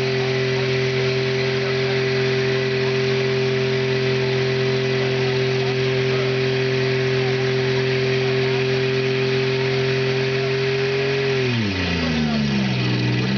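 Demolition derby car's engine held at steady high revs during a burnout, its drive wheels spinning and pouring out tyre smoke. About eleven seconds in the revs drop sharply, then climb again near the end.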